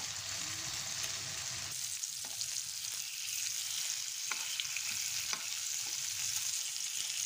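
Kingfish steaks coated in a ginger-garlic, pepper and turmeric marinade shallow-frying in coconut oil, with a steady sizzle. A few light clicks come from a steel spoon against the pan as the pieces are turned.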